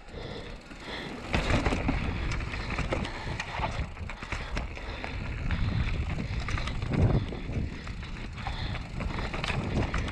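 Mountain bike descending a dirt and rock singletrack: knobby tyres rolling and crunching over the ground, with frequent knocks and rattles from the bike over bumps and roots. It gets louder a little over a second in.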